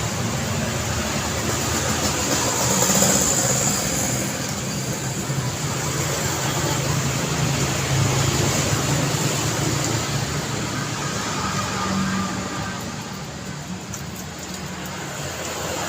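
Road traffic passing continuously: a steady rumble of car engines and tyre noise, swelling about three seconds in as a louder vehicle goes by and easing off a little near the end.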